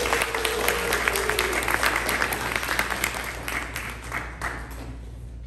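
Theatre audience applauding, with one voice calling out in a long falling tone near the start; the clapping thins out and dies away toward the end.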